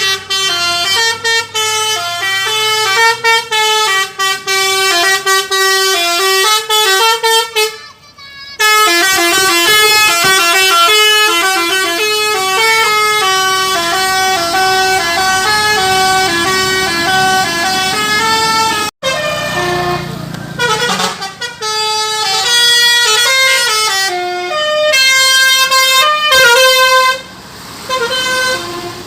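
Basuri telolet horn, a multi-trumpet bus air horn, playing a tune in stepped notes. It breaks off briefly about eight seconds in and again around nineteen seconds. It goes on in choppier notes until a short pause near the end.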